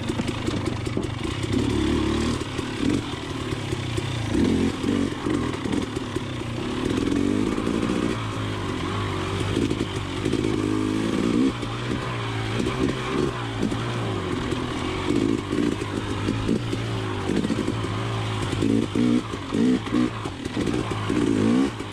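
Dirt bike engine being ridden, its revs rising and falling again and again as the throttle is worked.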